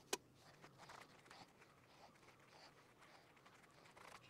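Near silence, with one sharp click just after the start and faint scattered ticks afterwards.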